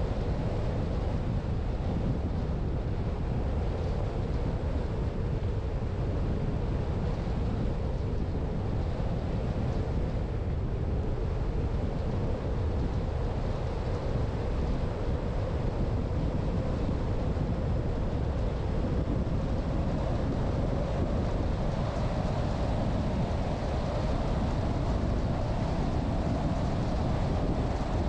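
Car driving along: steady road and wind noise, with a faint hum that rises slightly in pitch over the last several seconds.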